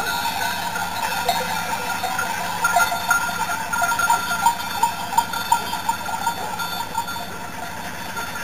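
Bells on a grazing flock of sheep clanking irregularly, the clanks thickest a few seconds in and thinning out towards the end.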